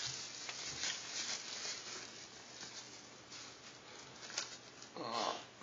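Thin plastic bag rustling and crinkling, with small ticks, as the phone wrapped in it is handled and lifted from its cardboard box. A short vocal sound comes near the end.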